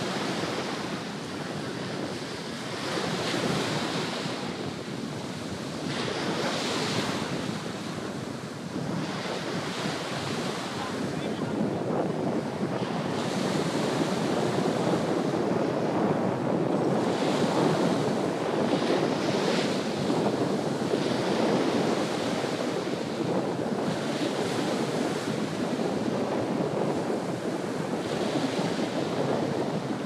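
Small Mediterranean waves breaking and washing up a sandy beach, the hiss of each wash swelling and fading every few seconds, with wind buffeting the microphone.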